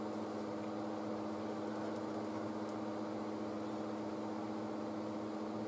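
Steady electrical hum with fan noise from running bench electronics, holding several constant tones, with a few faint ticks in the first few seconds.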